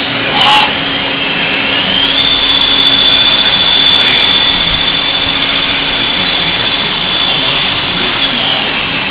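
Hardinge GT-27 CNC turning center running. A high whine climbs about two seconds in, holds steady, and drops back near the end, over a steady machine hiss, with a brief sharp hiss near the start.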